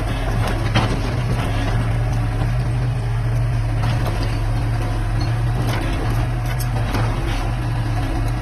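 Excavator diesel engine running steadily with a deep even hum, with a few short sharp knocks or clanks scattered through.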